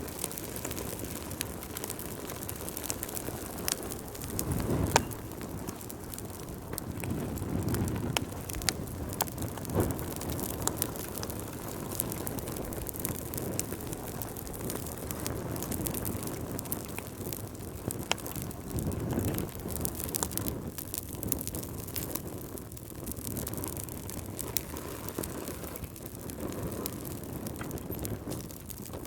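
Wood fire burning in a fireplace: frequent sharp crackles and pops over a low rush of flames that swells up a few times.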